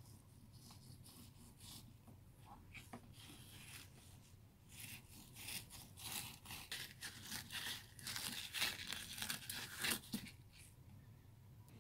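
Knife scraping and slicing along a plastic cutting board as the skin is cut away from a rockfish fillet: a run of quick rasping strokes, sparse at first, then denser and louder from about five seconds in until they stop about ten seconds in.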